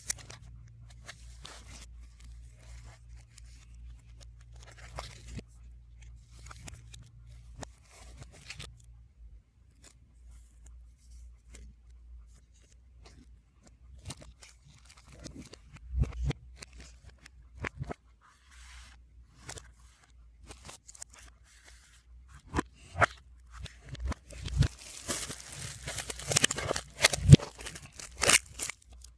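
Album packaging being handled and opened, played backwards: scattered small clicks and paper-and-plastic rustles, with a busier stretch of crinkling and tearing near the end.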